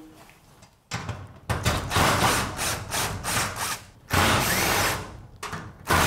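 Cordless drill running in reverse to back bolts out of a garage door, in several runs of one to three seconds after a brief pause.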